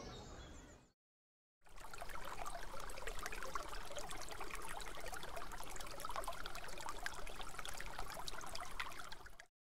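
Shallow stream babbling over stones, starting suddenly about a second and a half in and cutting off just before the end.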